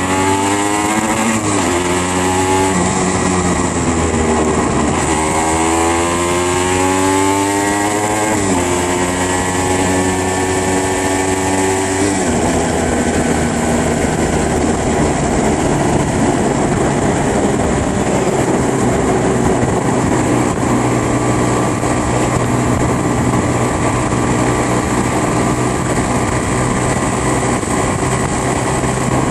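Aprilia RS125's single-cylinder two-stroke engine accelerating through the gears: its note rises and drops back at three upshifts in roughly the first twelve seconds, then holds a steady pitch while cruising, under a heavy rush of wind noise.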